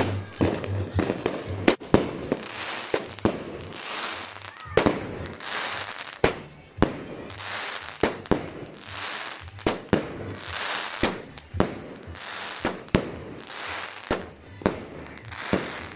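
Fireworks going off in a continuous barrage: sharp bangs roughly once or twice a second, with hissing and crackling between them.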